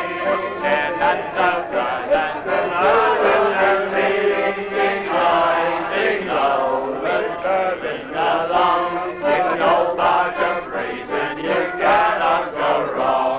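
A group of men singing together in chorus, a folk song with a steady, rolling tune.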